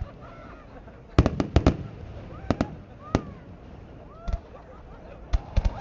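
Fireworks bursting overhead: a series of sharp bangs, several in quick succession a little after a second in and again near the end. Faint voices can be heard between the bangs.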